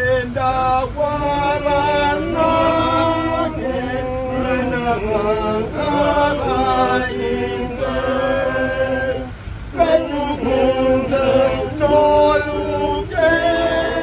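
A group of men singing together a cappella, in long held notes, with a short pause between phrases about two-thirds of the way through.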